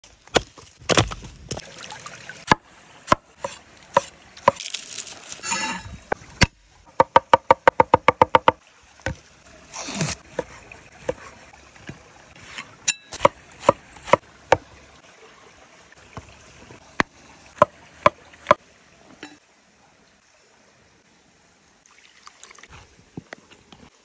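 A series of sharp knocks and cracks from handling firewood and a cleaver chopping sucuk sausage on a wooden board, including a fast even run of about a dozen strikes. The strikes die away near the end.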